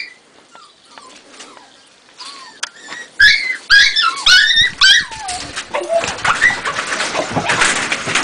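Jagdterrier puppy yelping and yipping in high, sharp cries that fall in pitch. A loud run of yelps starts about three seconds in, and from there the yelps carry on over scuffling noise.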